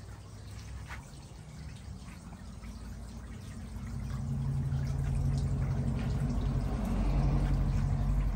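Water trickling and splashing in a backyard fish pond's water feature, growing louder about four seconds in, over a low steady hum.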